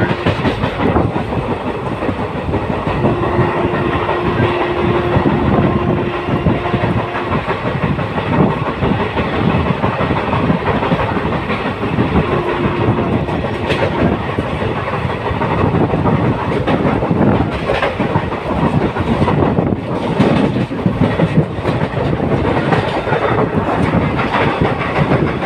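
Passenger express train running at high speed, heard from one of its own coaches through an open window: steady rushing wheel and wind noise with the clickety-clack of wheels over rail joints and points. The clatter thickens about two-thirds of the way through. A steady tone sounds twice in the first half.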